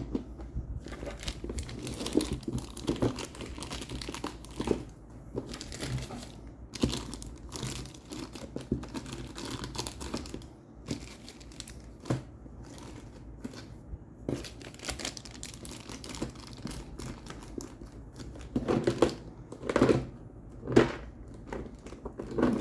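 Board game components being packed into their box: plastic tackle-box organisers and cards sliding, rustling and clicking as they are pushed into place, with a few louder knocks near the end.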